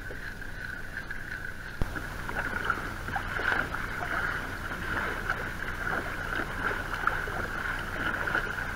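Sea kayak being paddled: a double-bladed paddle dipping and splashing in the water, with water sloshing at the plastic hull, from about two seconds in. A single knock just before the paddling starts, and a steady high-pitched hum throughout.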